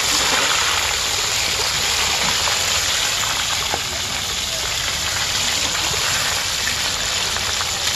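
Battered small crabs deep-frying in a wok of hot oil: a steady, loud sizzle, with a few faint clicks as a metal ladle turns them.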